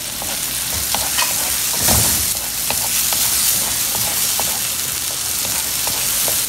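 Tomato pulp sizzling in hot oil with sautéed onions in a non-stick frying pan, stirred with a wooden spoon that clicks and scrapes against the pan. The sizzle swells about two seconds in.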